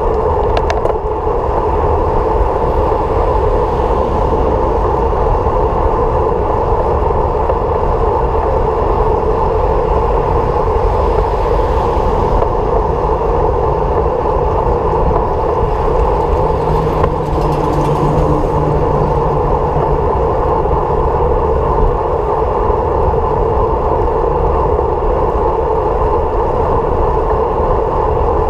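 Steady road and wind noise from a vehicle in motion, with a low hum standing out briefly about two thirds of the way through.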